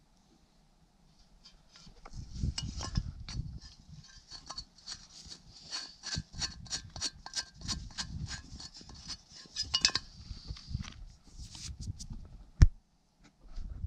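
Scratchy rubbing and scraping, a run of short strokes that quickens to about three a second in the middle, then one sharp knock near the end.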